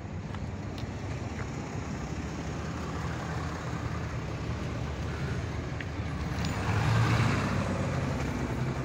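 Road traffic: a steady low engine rumble, with one vehicle passing louder about seven seconds in.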